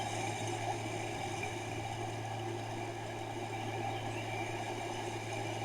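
Steady low hum with a faint even hiss and no distinct events.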